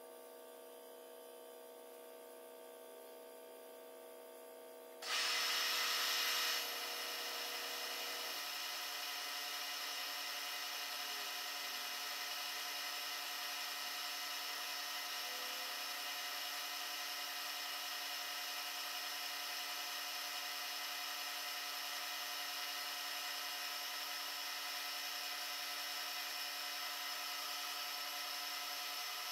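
A milling machine runs steadily with a whine. About five seconds in it steps up sharply into a louder whine with a hiss, loudest for a second or so, then holds steady, typical of the cutter working into the metal casting.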